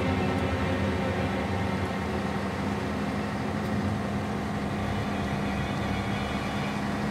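Truck engine running at a steady speed, an even drone heard from inside the cab.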